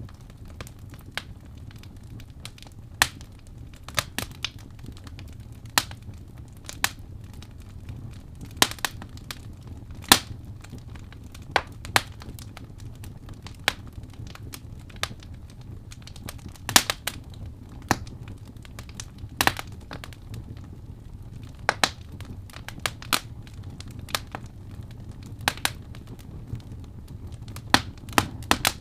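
Wood fire burning in a fireplace: a soft low rumble of flames with irregular sharp crackles and pops from the burning logs, a louder pop every few seconds.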